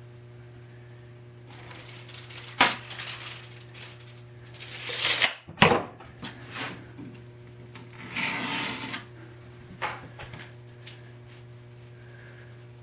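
Workbench handling noises: a few sharp clicks and knocks and two short rustling, scraping passages, the first swelling and then stopping abruptly, over a steady low hum.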